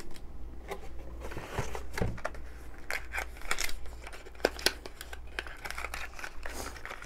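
Cardboard packaging and paper being handled: scattered rustling, scraping and small taps as the box insert is moved and a packed item is lifted out of the box.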